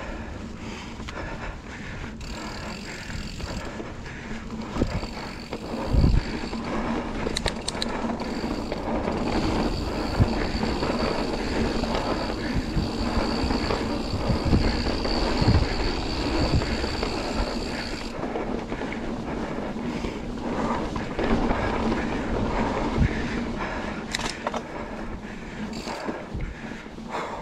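Santa Cruz Hightower full-suspension mountain bike ridden down a dirt singletrack: tyres rolling and skidding over dirt and roots with wind on the mic, and several sharp thumps and rattles as the bike hits bumps. A thin, steady high buzz runs through the middle and stops about two-thirds of the way through.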